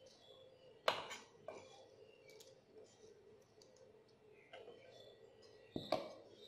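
Kitchen handling sounds: a sharp knock about a second in and another just before the end, with lighter clicks between, from a knife scraping chopped greens off a wooden chopping board and a large mixing bowl of shredded vegetables being handled and moved.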